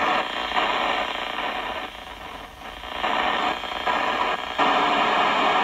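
Icom IC-3200A FM transceiver receiving on the 70 cm band, its speaker giving out a noisy hiss and static held below the radio's narrow audio band. The noise dips about two seconds in and comes back louder near the end.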